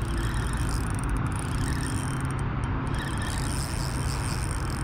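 Steady low hum of an electric trolling motor running, with an even background hiss.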